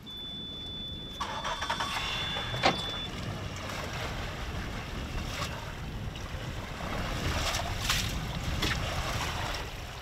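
Wind buffeting the microphone over choppy sea water slapping at a fishing boat, a steady low rushing noise. A thin, steady high tone sounds for about the first three seconds.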